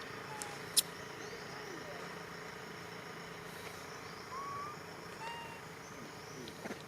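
Outdoor ambience: a steady background hiss with a few short whistled animal calls scattered through it, and one sharp click about a second in.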